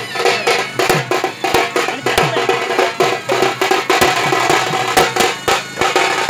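Strap-hung procession drums, a barrel drum and a white-headed stick drum, played live in a fast, dense beat, with many strokes each second.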